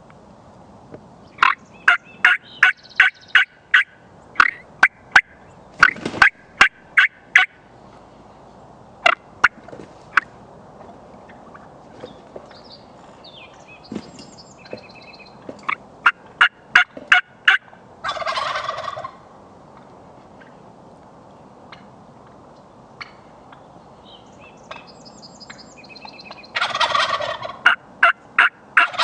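Wild turkey toms gobbling twice, each gobble a rattling burst about a second long. Between the gobbles come several quick runs of sharp turkey yelps.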